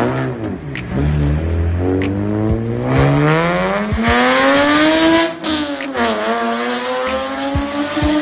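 Sports car engine revving hard, then accelerating with a long rising note, dropping sharply about five seconds in at a gear change and pulling up again to a steady high note.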